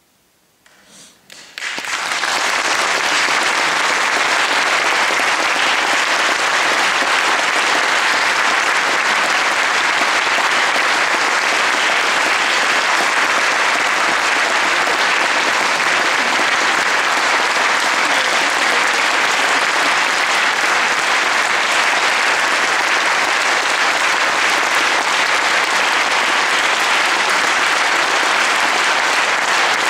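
Near silence for the first second or so, a few first claps, then a large audience breaking into full, steady applause.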